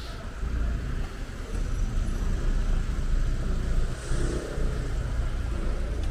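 Street traffic: a car's low engine rumble, steady after growing louder about half a second in, over general city street noise.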